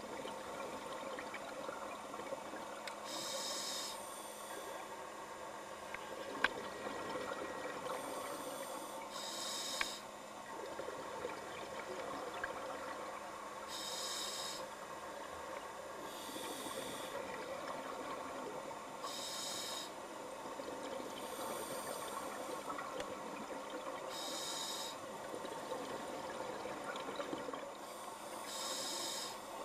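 A scuba diver breathing through a regulator underwater: a short hissing inhale every few seconds, with a bubbling exhale between breaths, over a steady watery background. There are a couple of faint clicks.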